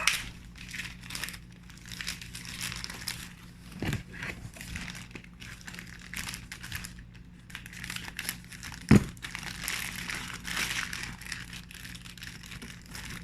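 Packaging rustling and crinkling as a parcel of products is unpacked by hand, with two sharp knocks, the louder one about nine seconds in.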